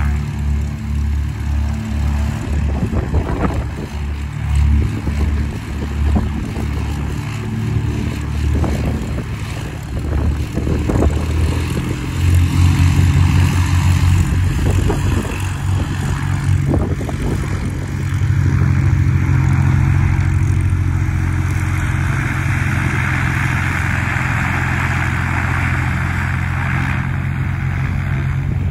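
Light aircraft's piston engine and propeller running at low power with an uneven, pulsing beat, then power comes up about twelve seconds in and the engine runs steadier and louder, stronger again from about eighteen seconds.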